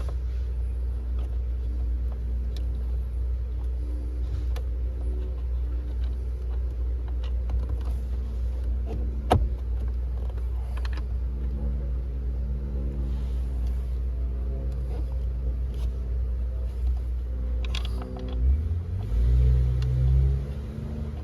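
Scattered clicks and knocks of a replacement blower motor being handled and fitted, with one sharp click about nine seconds in, over a steady low rumble. Heavier, uneven low thumping comes near the end.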